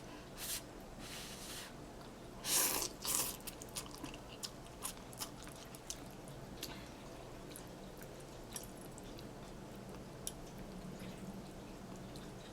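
A person eating ramen noodles: a few short wet slurps in the first few seconds, then quiet chewing with small wet mouth clicks.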